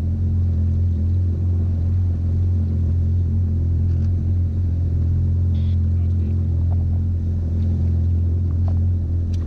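Jet ski engine idling steadily, a constant low hum with no change in pitch.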